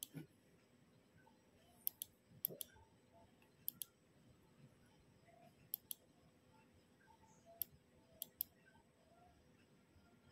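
Computer mouse clicking: about six short, sharp clicks spaced a second or two apart, most heard as a quick double tick of press and release, with near silence between.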